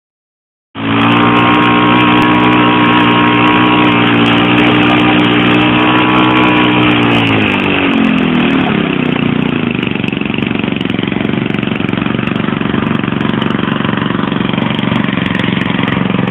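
Engine of a large radio-controlled J3 Cub scale model airplane. It starts in abruptly just under a second in, running steadily at a fairly high speed, then is throttled back about eight seconds in, its pitch sliding down to a lower idle.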